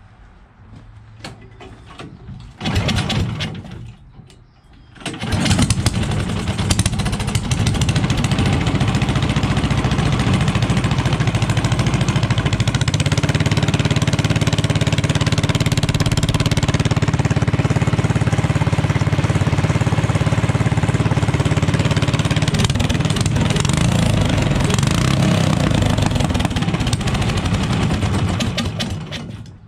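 Predator 420cc single-cylinder engine on a mud motor being started: a short burst about three seconds in, then it catches about five seconds in and runs steadily through its newly fitted exhaust pipe, before being shut off near the end.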